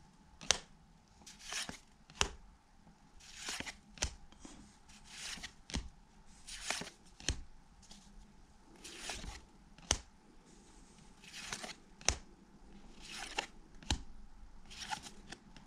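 A stack of 1991 Pacific football cards being flipped through by hand, one card at a time: a soft swish of card sliding over card alternating with a sharp little snap, roughly one of each every second or two.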